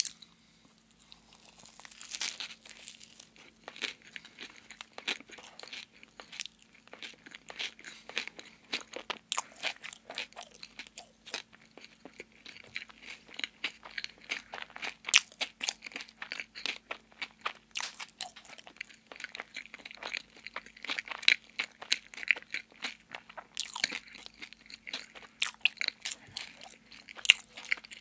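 Close-miked eating sounds of a chocolate-glazed donut with a crunchy topping: a bite right at the start, then steady chewing with the mouth closed, full of small wet clicks and crunches.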